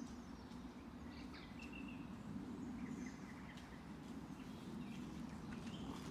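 Faint songbirds chirping in short, scattered calls over a steady low background rumble.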